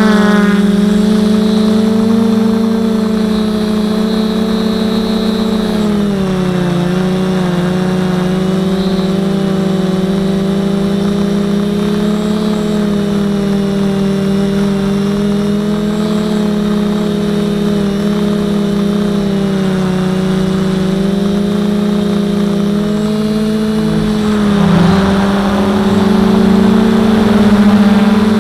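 Quadcopter's electric motors and propellers humming steadily in flight, the pitch dipping briefly about six seconds in and shifting with the throttle. Near the end a rush of wind noise joins the hum.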